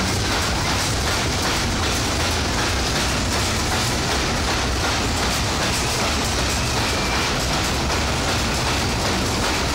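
Caterpillar fairground ride running at speed, its linked cars giving a steady, loud rumble and clatter as they run around the undulating circular track.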